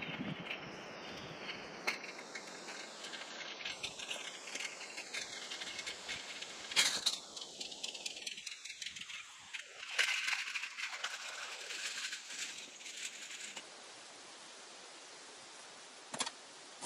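Irregular rattling and clatter of objects being handled in a steel mesh garden cart, louder about seven and ten seconds in. There is a single sharp knock near the end.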